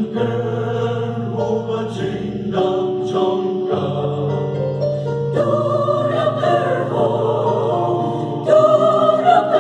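Mixed choir of men's and women's voices singing in parts, accompanied by a Casio MZ-X500 electronic keyboard; the singing swells louder about a second before the end.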